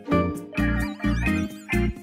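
Playful background music with a bouncy beat, a stroke about every half second, and a warbling note near the middle.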